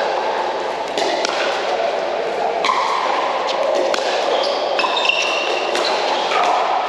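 Pickleball paddles hitting a hard plastic pickleball back and forth in a rally: a series of sharp pops, roughly one a second, over the steady background noise of a large indoor hall.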